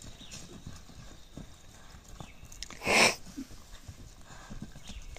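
Hoofbeats of a galloping horse and a running bull on a dirt arena, heard as scattered dull thuds. A short, loud rush of noise comes about three seconds in.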